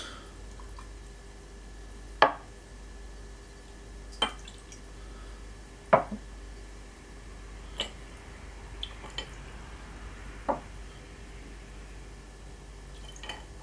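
Short sharp glass clinks, about five of them roughly two seconds apart with a few lighter taps between: shot glasses knocking against a glass of ice and being set down on a wooden board as half-shots of spirits are poured in, with a faint trickle of liquid over the ice.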